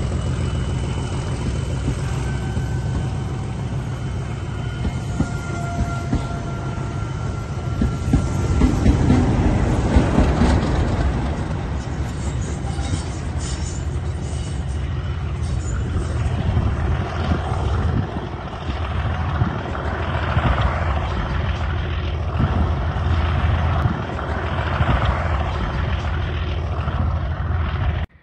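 English Electric diesel locomotive working hard under load, a steady heavy engine thrash that is loudest about eight to eleven seconds in. A faint high whistle sounds over it a few seconds in, and the sound cuts off abruptly at the end.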